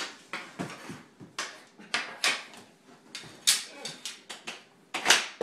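Floor hockey play: an irregular run of sharp clacks and knocks from sticks and ball striking each other and the hard floor, the loudest about five seconds in.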